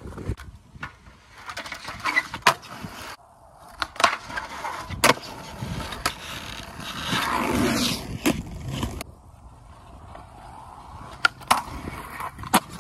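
Skateboard on concrete: several sharp clacks of the board popping and landing, with the wheels rolling over rough concrete in between, loudest from about six to nine seconds in.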